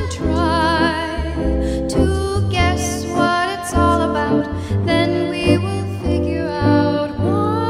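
A woman singing a slow ballad with a wide vibrato over soft instrumental accompaniment.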